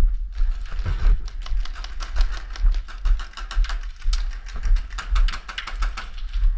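Rapid, irregular clicking and rattling, several clicks a second, over a heavy low rumble.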